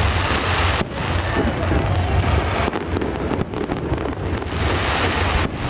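Fireworks going off in a continuous barrage of bangs and crackling over a low rumble.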